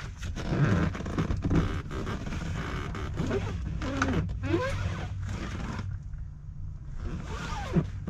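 A wheel and tire being wrestled and wedged into the back of a car: a run of scrapes, knocks and rubbing, with a few short squeaks, easing off about six seconds in.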